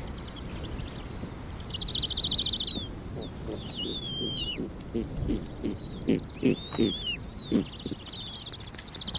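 Snowy owls calling: high rasping and descending whistled calls, joined from about five seconds in by a run of short low hoots, about two or three a second.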